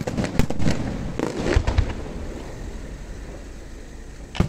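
Aerial firework shells bursting: a quick run of sharp bangs and crackles in the first two seconds, then a lull, then one loud boom near the end.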